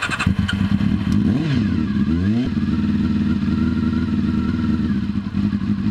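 Honda CBR400RR (NC29) 399 cc inline-four motorcycle engine starting on a manual choke: it catches right at the start, the revs rise and fall twice over the first couple of seconds, then it runs at a steady idle.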